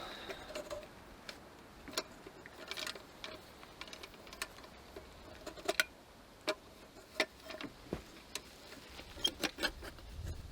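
Irregular light clicks and taps of an old thin-tin kerosene lantern being handled as its glass globe is fitted back into the hinged frame, about one or two clicks a second.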